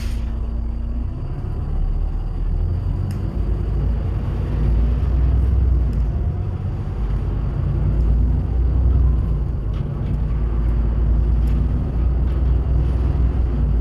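Empty bus riding along: a steady low engine and road rumble that swells and eases, with a few light rattles. A hum stops about a second in.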